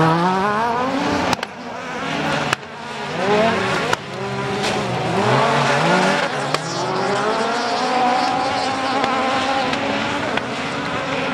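Several Division 1A rallycross cars racing, their engines revving up and down in pitch through gear changes as they pass. There are a few abrupt breaks in the sound.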